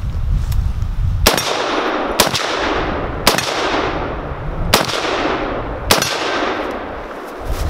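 Five shots from a 7.62 rifle, roughly a second apart, each trailing off in a long fading echo.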